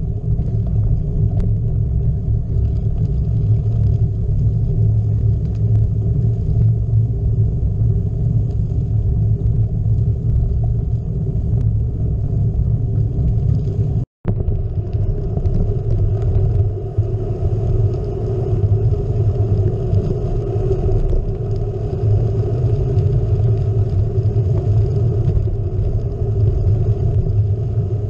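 Steady low rumble of wind buffeting a GoPro's microphone and gravel-bike tyres rolling over a dirt road. The sound cuts out completely for an instant about halfway through.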